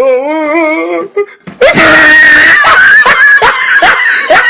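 A wavering, quavering voice for about a second, then loud, distorted screaming from about a second and a half in, chopped by sharp breaks toward the end.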